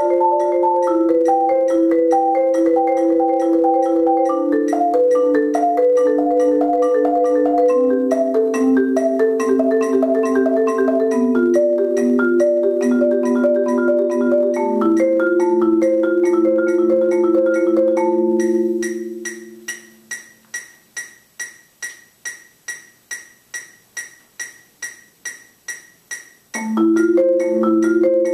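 Four-mallet marimba played in rapid lateral strokes: fast alternating notes on rosewood bars, moving through a series of descending chords. The notes die away at about two-thirds of the way through, leaving only an even metronome-like ticking, a little under three ticks a second. The marimba comes back in just before the end.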